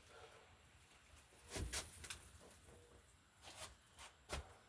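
Faint scuffs and a few light knocks from things being handled and shifted in a cluttered shed, with the clearest one about a second and a half in.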